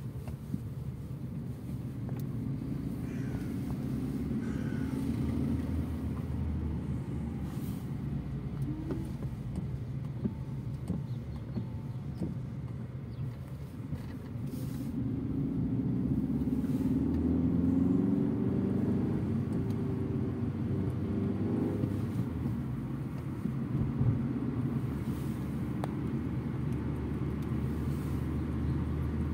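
Fiat Egea's engine and tyre noise heard from inside the cabin while driving, with the engine note climbing as the car accelerates about halfway through.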